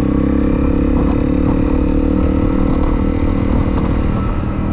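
Honda CRF250L motorcycle's single-cylinder engine running at a steady speed while riding, with a low rumble beneath it.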